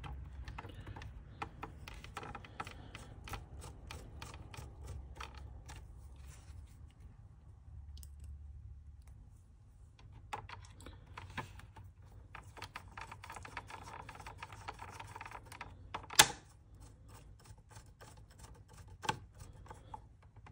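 Small Phillips screwdriver driving screws into a plastic router case, with hands handling the case: a run of light clicks and scrapes, and two sharper clicks in the second half.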